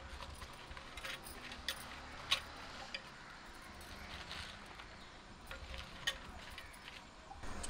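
Fresh papdi bean and green pea pods dropped and pressed by hand into an unglazed clay pot: soft rustling with scattered light clicks and taps.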